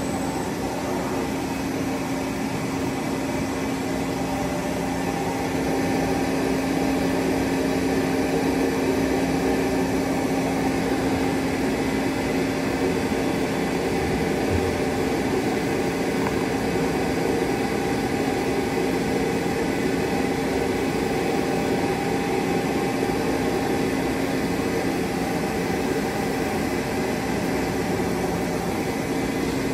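Nomura HBA-110T-R2 CNC horizontal boring mill running under power: a steady machine hum with one clear humming tone over a wash of mechanical noise, growing slightly louder about six seconds in.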